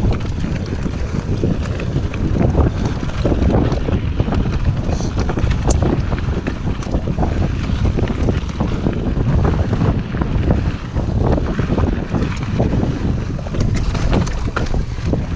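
Wind rumbling on an action camera's microphone as a mountain bike rolls down a rocky dirt singletrack, with many small clicks and knocks as the tyres and bike rattle over stones.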